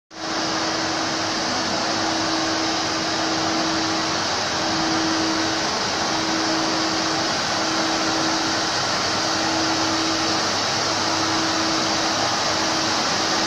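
Walk-behind floor scrubber running: a steady whirring hiss from its suction motor and brush, with a low steady hum beneath.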